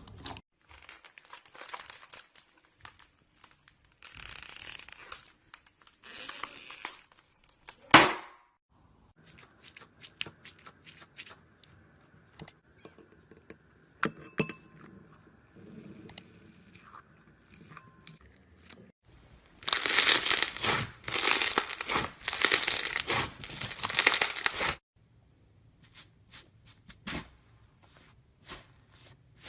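Slime being squeezed and pulled by hand, making scattered crackles, pops and clicks, with one sharp loud pop about eight seconds in and a long run of dense crinkly crackling about twenty seconds in.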